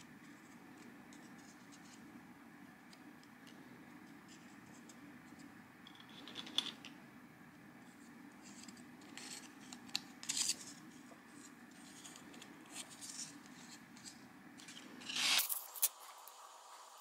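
Stiff paper parts being handled, aligned and pressed with fingers and metal tweezers: faint scratchy rustles and small clicks, a few louder ones around the middle and near the end, over a steady low hum that cuts off suddenly near the end.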